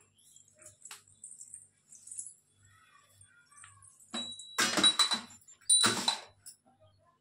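Small brass puja hand bell rung in two short bouts about a second apart, starting about four seconds in, with a clear high ring that carries between the bouts. Faint taps and clinks before it.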